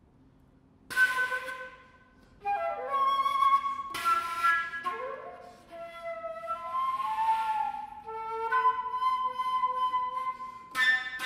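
Solo concert flute playing contemporary classical music. After about a second of quiet, a sharp, breathy attack opens a series of short phrases. The phrases mix held notes with pitch bends, and there is a flurry of quick notes near the end.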